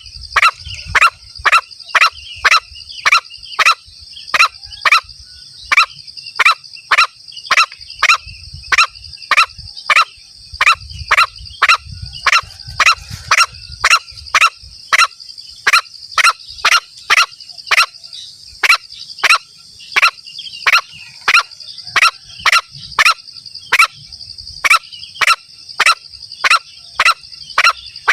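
Green junglefowl lure call: a short sharp clucking call repeated evenly about twice a second, over a steady high-pitched insect drone.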